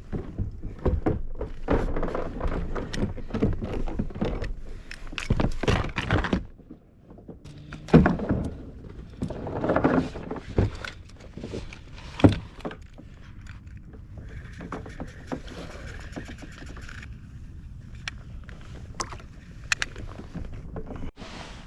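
Hollow thunks and knocks against a plastic Viking Reload fishing kayak's hull as the anchor is readied and put out. The knocks are irregular and busiest in the first six seconds, with single louder knocks about eight and twelve seconds in.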